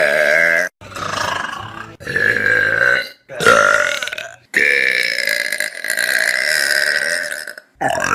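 A run of loud human burps, about five in a row with short silent breaks between them, the last a long drawn-out one of about three seconds.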